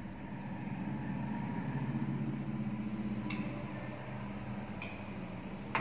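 Laboratory glassware clinking: two short glass-on-glass clinks, about three seconds in and again near the end, over a steady low hum.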